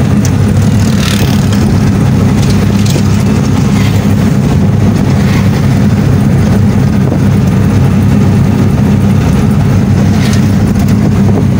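A vehicle's engine running steadily at cruising speed, heard from on board as it drives along a road, with a low, even drone and road noise.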